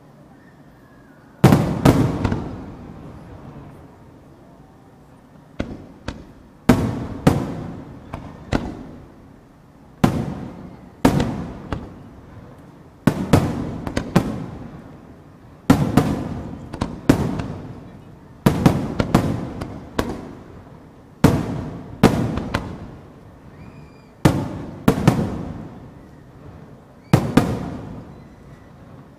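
Aerial fireworks shells bursting one after another: about twenty sharp booms, often two or three in quick succession, each trailing off in a long rolling echo. The first comes about a second and a half in.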